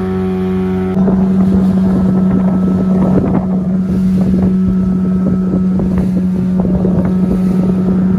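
Small open fishing boat's engine running with a steady drone under way in rough, choppy sea, wind buffeting the microphone and water splashing against the hull. About a second in it jumps louder, the wind and spray noise rising over the engine.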